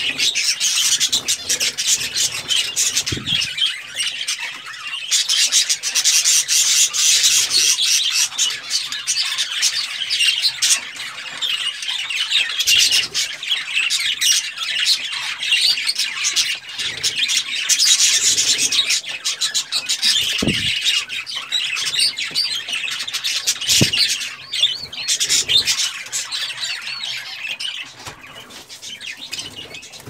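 A large flock of budgerigars chattering and warbling continuously, a busy, high-pitched mix of many overlapping calls. A few soft low thumps sound under it, and the chatter thins out near the end.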